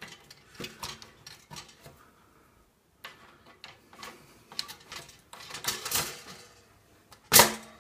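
Toaster lever mechanism clicking and knocking: small clicks as the plastic grip is pushed onto the lever, then a cluster of clicks about five and a half to six seconds in as the lever is pressed down and latches, the latch catching again now that crumbs are cleared from it. Near the end, one loud sharp clack as the bread carriage springs back up.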